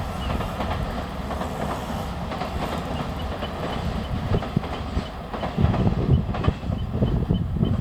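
Freight train rolling steadily past, its wheels clicking and thumping irregularly over the rail joints under a continuous rumble.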